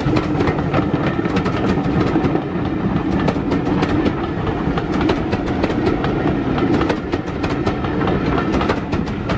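Passenger coaches of a steam-hauled train rolling past close by, their wheels clicking steadily over the rail joints under a continuous rumble.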